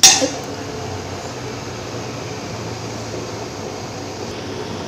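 A sharp clink of a utensil on the pot at the very start, then a steady hiss from the pot of pea masala gravy simmering on the gas stove.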